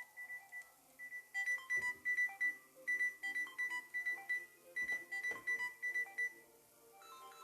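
Samsung Galaxy A20e ringtone playing from the phone's speaker: a quick melody of short, bright notes in phrases that repeat every second and a half or so. Near the end it gives way to a different, softer ringtone.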